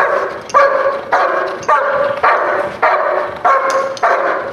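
A dog barking in a steady, even rhythm, nearly two barks a second: controlled threat barking on command at a decoy, holding the threat without going in to bite.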